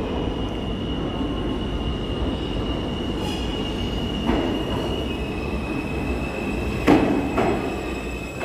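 R160-series New York City subway train coming round the curve into the station, a steady rumble with a high, steady wheel squeal that drops slightly in pitch about five seconds in. Sharp clacks over the rail joints at about four, seven and seven and a half seconds in; the one near seven seconds is the loudest.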